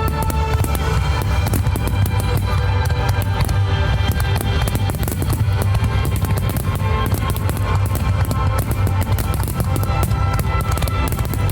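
Rock music with drums and guitar, playing steadily.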